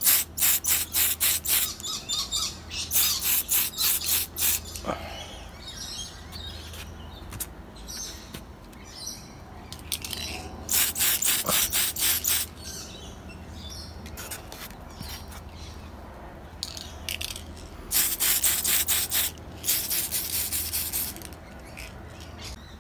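Aerosol spray can of clear coat: a quick run of rattles at the start, about four a second, as the can is shaken. Then three hissing bursts of spray, each a second or so long, one a little before the middle and two close together near the end, laying light mist coats.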